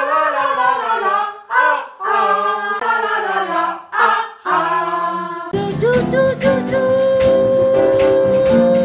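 Several women's voices singing together without accompaniment, a melodic line with short breaks between phrases. About five and a half seconds in, instruments come in suddenly with a fuller sound and a long held note.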